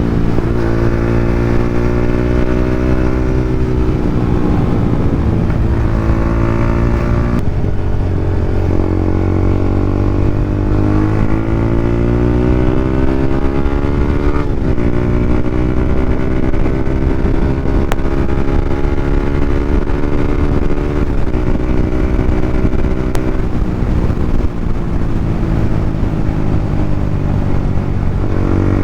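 Yamaha Sniper 150's single-cylinder four-stroke engine running through an open EXOS R6 exhaust pipe with no silencer. The pitch climbs and falls several times, dropping suddenly about every seven seconds.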